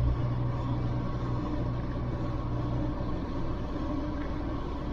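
Land Rover Defender driving along a paved road: steady engine hum with tyre and road noise.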